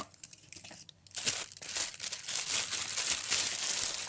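Packaging being unwrapped and handled, crinkling and rustling in irregular bursts from about a second in.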